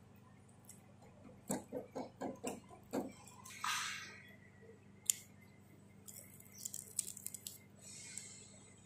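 Close-up eating sounds of raw green banana dipped in chili sauce being bitten and chewed: a run of about six rhythmic chewing strokes, a breathy hiss, then a few crisp crackling bites.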